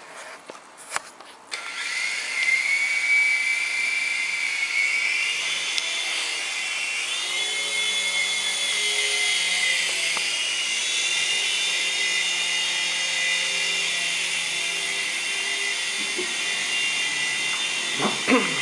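Small electric toy RC helicopter: after a few clicks, its motors and rotors spin up about two seconds in to a steady high whine. The pitch climbs and eases as it flies. There is a sharp knock near the end as it comes down onto the wooden floor.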